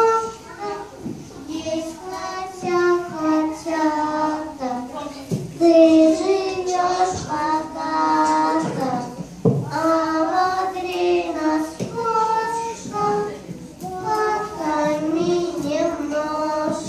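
A child singing a song, long held melodic phrases with short breaks between them.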